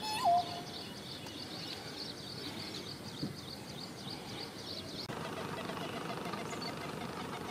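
A pheasant-tailed jacana gives one cat-like mewing call just after the start, the last of a repeated series; this is the kind of courtship call the breeding female gives to attract males. A rapid run of thin, high chirps follows until about five seconds in, over steady marsh ambience.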